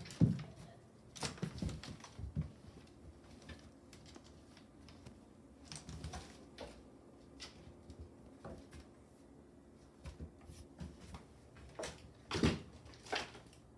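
A cat batting a mouse around on the floor: scattered, irregular light taps and scuffles, with louder knocks right at the start and about twelve seconds in.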